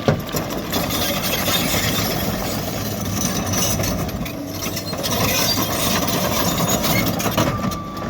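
Diesel engine of a heavy tracked earthmoving machine running steadily, with a sharp knock right at the start.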